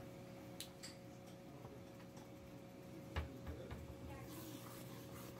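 Faint steady hum with a few light ticks, then a single sharp knock about three seconds in as a wooden spoon is lifted against a stainless steel cooking pot.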